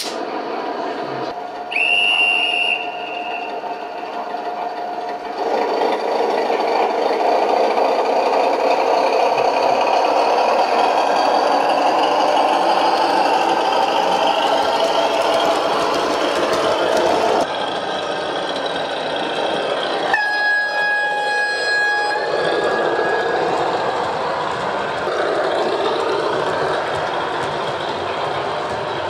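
Gauge 1 model diesel locomotive and coaches running on the layout, with the running noise of wheels on the track. There is a short, high horn blast about two seconds in and a longer, lower horn blast about twenty seconds in.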